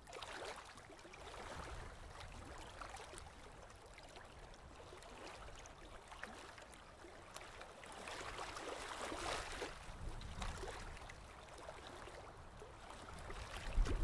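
Faint outdoor ambience of river water lapping over a rocky shallow edge, with a low steady rumble underneath.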